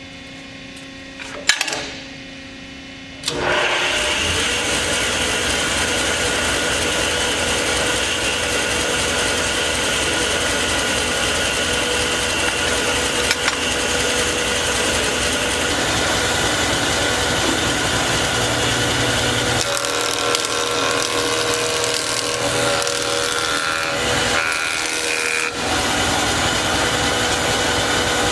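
Powermatic 50 6-inch straight-knife jointer: a sharp click, then about three seconds in the motor and cutterhead come on and run steadily. In the later part the sound changes as a board is fed across the spinning knives.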